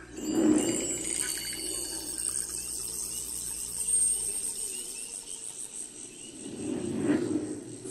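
Dolby Atmos demo soundtrack effects: a deep whoosh swelling up about half a second in, a high shimmering, fluttering sound held through the middle, and a second whoosh swelling near the end.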